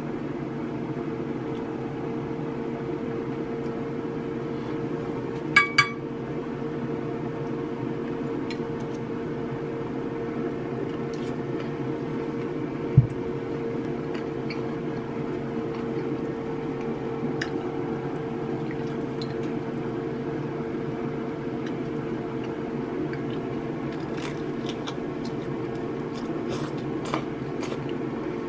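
Steady background hum with occasional light clicks and clinks of chopsticks on ceramic tableware. There is a ringing double clink about six seconds in, a dull thump near the middle, and a cluster of small clicks near the end.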